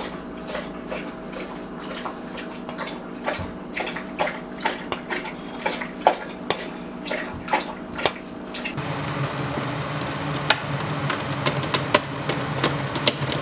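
A dog lapping water from a bowl: a quick, even run of wet laps, about three a second. Nearly nine seconds in, this gives way to a steady low hum with a few scattered clicks.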